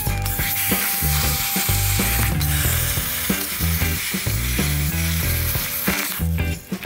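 Steel body panel of a 1956 Chrysler Windsor being cut through with a power cutting tool, a steady hiss that stops briefly near the end, with background music carrying a bass line underneath.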